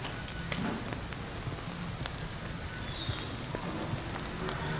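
Rohu fish fillets sizzling on a wire grill over charcoal: a steady crackle with a few sharp pops, the loudest near the end.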